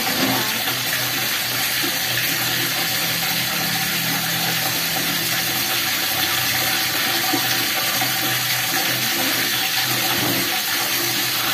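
Water running steadily from a tap, a constant rushing hiss.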